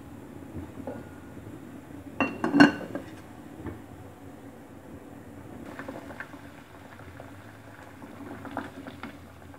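Aluminium cooking-pot lid clanking as it is set onto the pot, two or three sharp metallic strikes about two seconds in. Lighter clinks of a utensil against the pot follow near the end, over a low steady background noise.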